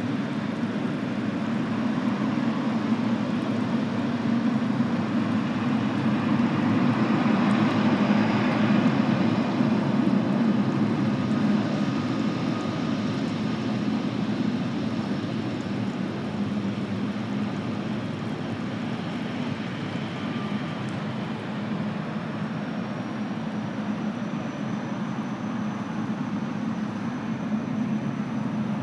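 Airliner jet engines heard across the airfield, a steady rumble that swells to its loudest about a third of the way in and then eases off, with a faint high whine in the last part.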